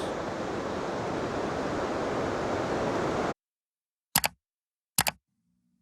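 Steady rushing of a waterfall, which cuts off abruptly about three seconds in. Then two short sharp clicks a little under a second apart, and a faint low hum near the end.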